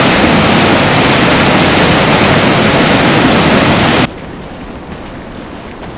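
Niagara Falls and its churning water below: a loud, steady rush of water. It cuts off suddenly about four seconds in, leaving a much fainter outdoor hiss.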